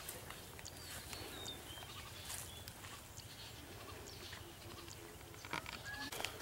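Quiet outdoor ambience: a low steady rumble, a few short high bird chirps in the first second or two, and some light clicks near the end.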